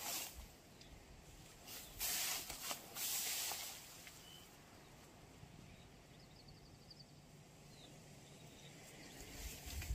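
Quiet outdoor ambience: a few brief rushes of hiss in the first few seconds, then a small bird chirping faintly, including one quick run of about five high notes in the middle.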